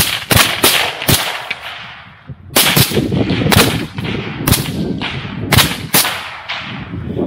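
Rifle gunfire from suppressed rifles, about a dozen sharp shots in quick, uneven strings with short gaps, each crack trailing off in an echo.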